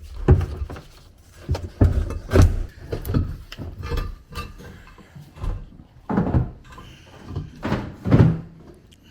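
A dozen or so irregular metal clunks and knocks as the exhaust pipe of a 1995 Sea-Doo GTX is pried and worked loose.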